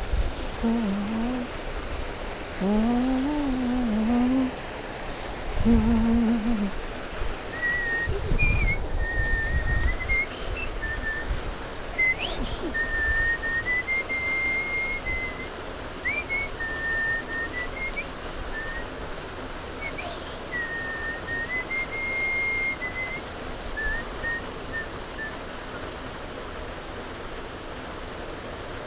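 A man humming a tune for several seconds, then whistling a melody in held notes, over the steady rush of flowing creek water. Two dull thumps come in between, at about six and eight seconds.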